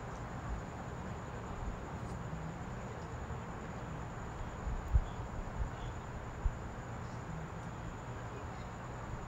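Quiet room hiss with a faint high steady whine, broken by a few soft low bumps from hands and tweezers handling flower parts on a work board; the two sharpest come about five and six and a half seconds in.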